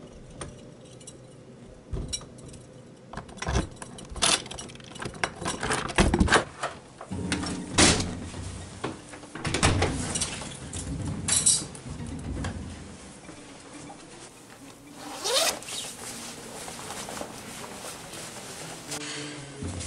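Someone moving about and handling a door: a string of knocks, clicks and rustling, with a quick rising squeak about fifteen seconds in.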